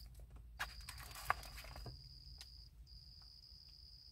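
Faint handling of a Radio Shack car phone handset and its carry bag: soft rustles and a few light clicks in the first two seconds, over a steady faint high-pitched whine that drops out briefly near the middle.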